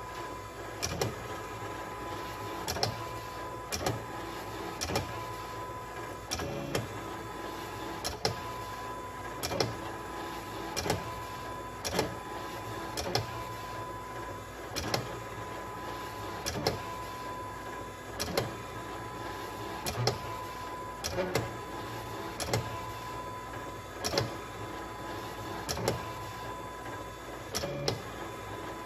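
Silhouette Cameo cutting machine working as a pen plotter: its motors run with a steady whine while the carriage draws lines. A sharp click comes roughly once a second, at uneven spacing, as the pen is set down and lifted for each line.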